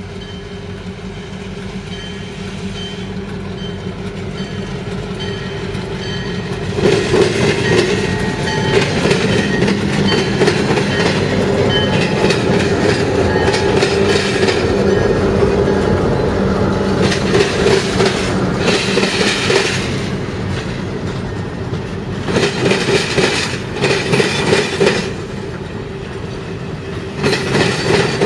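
Passenger train rolling slowly past, led by diesel locomotives running under power. From about seven seconds in, the passenger cars' wheels clatter loudly and rhythmically over rail joints and switches.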